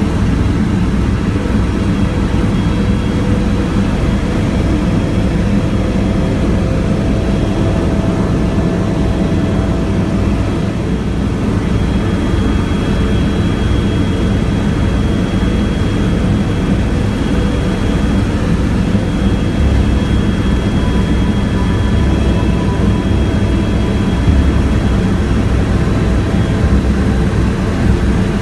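Helicopter's turbine engine and rotor heard from inside the cabin: a loud, steady drone with a fast low pulsing from the rotor.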